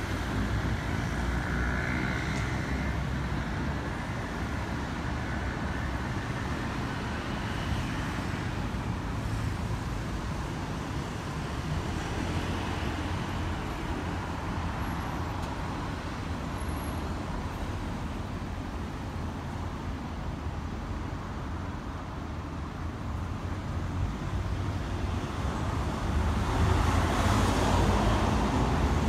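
Steady road traffic of cars and trucks, growing louder over the last few seconds.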